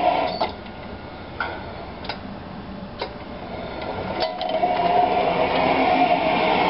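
Hayashi Yakuhin Kikai tablet bucket lifter running: a steady motor hum cuts off within the first half second, a few sharp mechanical clicks follow, and the hum starts again about four seconds in as the bucket is raised.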